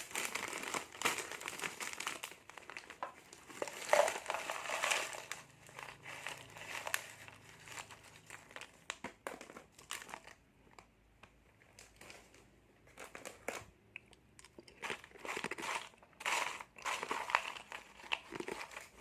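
Crinkling and rustling of thin plastic snack packets as they are handled and opened one after another, with a quieter lull about halfway through.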